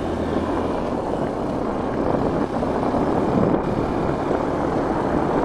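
Wind rushing over the microphone of a moving motorcycle, with the engine running underneath.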